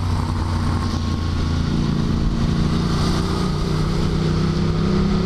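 Motorcycle engine running at a steady cruise, heard from the rider's helmet camera with wind noise over it.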